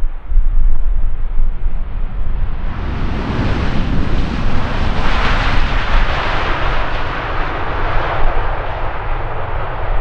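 KLM Boeing 787-9 jetliner on arrival, the roar of its GE GEnx-1B turbofans swelling from about three seconds in, loudest around the middle, then fading as it passes, over a steady low rumble.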